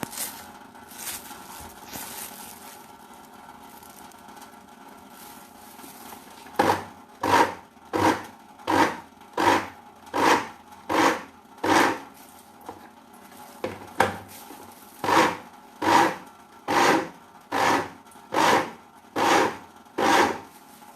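Turmeric being ground with a little water: faint rasping at first, then from about six seconds in a run of rhythmic grinding strokes, a little more than one a second, with a short break midway.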